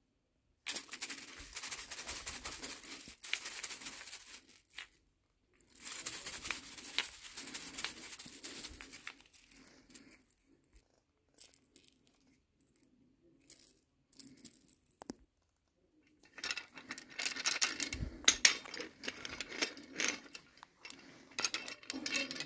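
Small wooden bead toy rattling and clicking as it is handled. The clicks come in three dense spells, about a second in, about six seconds in and from about sixteen seconds in, with scattered single clicks between.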